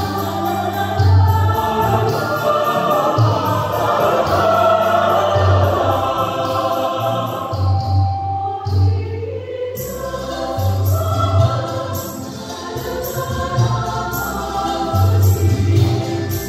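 Mixed choir of men and women singing in parts over an accompaniment with a low, repeating beat.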